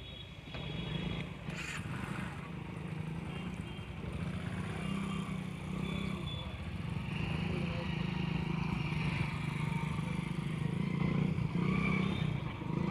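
Small commuter motorcycle engine running at low speed as the bike is ridden slowly around a tight test course, growing louder toward the end. Crowd voices chatter in the background.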